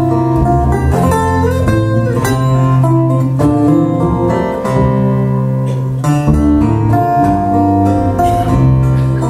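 Three acoustic guitars playing an instrumental break in a folk song, picked and strummed together with a steady beat.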